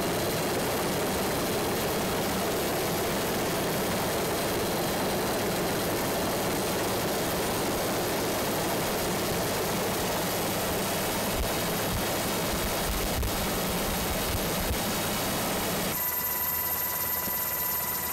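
Steady rushing engine and airflow noise of an aircraft in flight, heard from on board. About two seconds before the end it cuts to a quieter, steadier hum with a faint high tone.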